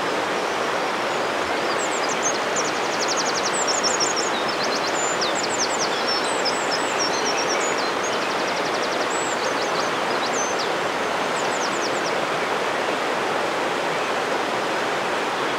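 Steady rush of flowing river water. From about two seconds in until about twelve seconds, a small songbird sings a run of high, quick notes and fast trills over it.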